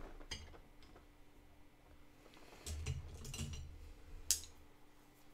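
A few light clicks and knocks from painting tools being handled on a tabletop: one click soon after the start, a cluster of knocks with a soft thud around the middle, and a sharper tap near the end.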